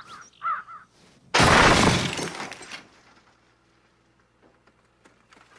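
A car crashes upside down onto a stack of old television sets. A sudden loud crash of metal and shattering glass comes about a second and a half in and dies away over about a second, followed by faint scattered ticks.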